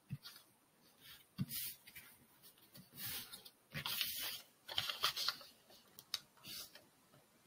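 A sheet of origami paper rustling and crinkling as hands fold it and press the creases, in a series of about five short rustles.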